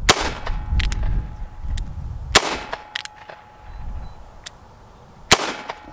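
Three shots from a Standard Manufacturing S333 Thunderstruck .22 Magnum double-barrel revolver, about two and a half to three seconds apart. Each trigger pull fires both barrels at once, so each crack is a pair of .22 Magnum rounds going off together.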